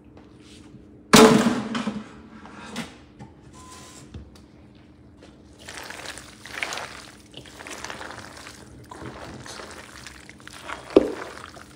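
A spoon stirring and tossing mayonnaise-dressed penne in a large stainless steel bowl, with wet, squelching scrapes. There is a loud clank about a second in and a sharper knock near the end.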